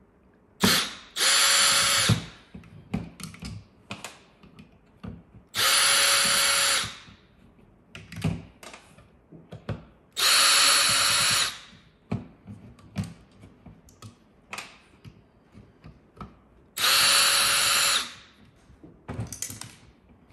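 Cordless drill-driver spinning out the four security Torx screws from the bottom of a DeWALT 20V Max battery pack, in four bursts of a second or so each with a steady motor whine. Small clicks and knocks of handling the pack and screws come between the bursts.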